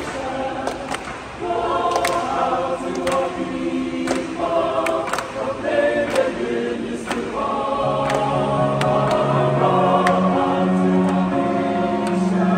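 Mixed-voice chamber choir singing a sustained chordal hymn in parts. Low men's voices come in under the harmony about eight seconds in, and faint sharp taps mark roughly one a second.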